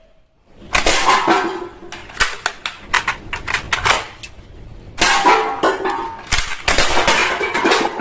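Hard plastic toy pieces and packaging being handled: dense runs of sharp clicks, knocks and rattles, in two spells, the second starting about five seconds in.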